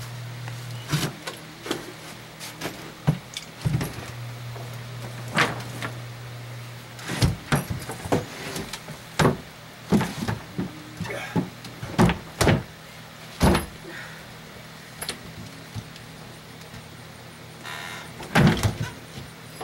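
Irregular wooden knocks and scrapes as a plywood deck panel is moved and set down and hands work in the opening beneath a boat deck, about a dozen sharp knocks spread unevenly through.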